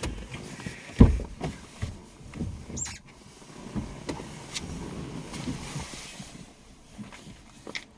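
Handling sounds of work inside a car: one loud knock about a second in, then several smaller knocks and rustling, with a brief high squeak near three seconds.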